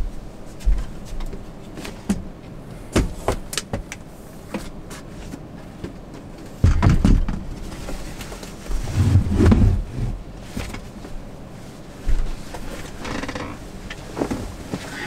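Handling noises: a run of clicks and knocks, with two longer, heavier thumps about seven and nine seconds in.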